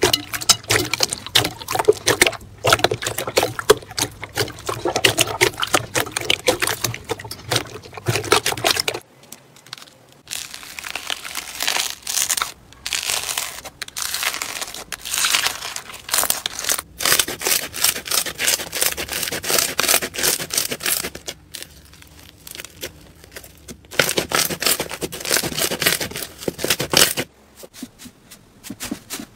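Hands squeezing and pressing slime: close-up squishing with dense crackling and popping, in several separate stretches with short quieter breaks between them.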